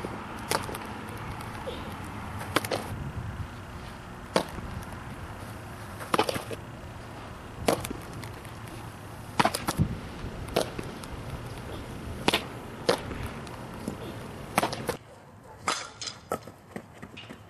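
Softball fielding drill: a bat hitting balls and balls smacking into leather gloves, a sharp crack every second or two. The cracks are fainter near the end.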